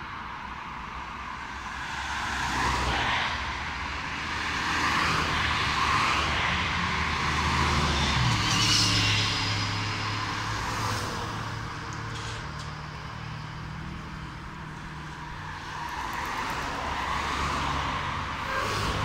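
City road traffic: cars go by in swells of tyre and engine noise, the loudest passing about eight to nine seconds in. Near the end an Astra Ikarus 415T trolleybus draws up to the stop.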